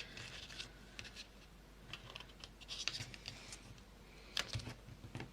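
Faint rustling and light taps of paper being folded and creased by hand, with a sharper tap about four seconds in.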